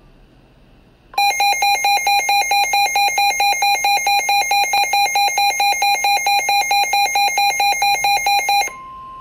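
Midland NOAA weather radio's built-in alert alarm sounding for a tornado warning: loud, rapid electronic beeping at about four beeps a second, starting about a second in and lasting about seven and a half seconds. When it stops near the end, a quieter steady single tone follows: the broadcast's warning alarm tone coming through the radio's speaker.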